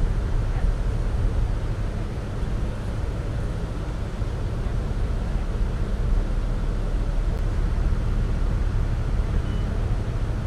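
Steady low drone of a river tour boat's engine underway, with a hiss of rushing water around the hull.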